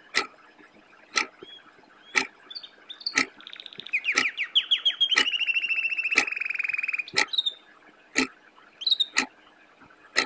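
Sharp ticks evenly spaced once a second, like a clock ticking, with short high chirps between them. About a third of the way in, a rapid high trill starts, falls slightly in pitch and holds for about three seconds.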